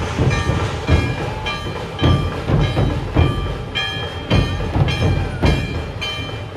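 Large dhol drums of a dhol-tasha troupe beaten together in a steady, heavy rhythm, about two strong beats a second, with short bright ringing tones above the beat.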